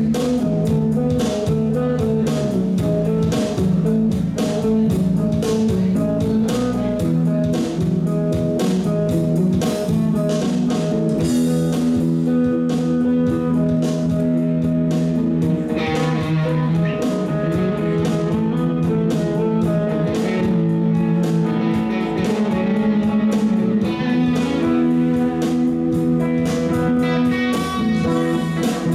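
Live band playing an instrumental passage on electric guitars, bass guitar and drums, with a steady beat. A higher lead line comes in about halfway through.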